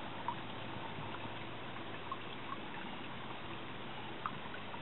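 Faint steady outdoor background hiss with a few light ticks.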